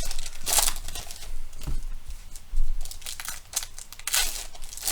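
Trading-card pack wrappers being torn open and crinkled by hand: a run of irregular tearing and crinkling rustles.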